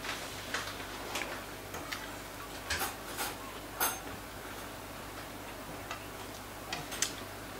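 Eating sounds: a fork clicking and scraping against a plate, along with chewing, heard as a string of short, soft, irregular clicks.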